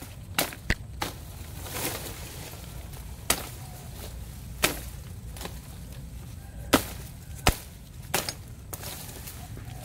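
Machete chopping into dry woody brush stems: about eight sharp whacks at irregular intervals, some close together, others a second or two apart.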